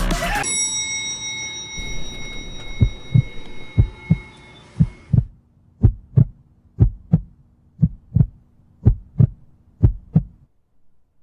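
Heartbeat sound effect: paired low thumps, lub-dub, about once a second, starting about three seconds in. A steady hum runs beneath at first and stops about halfway through.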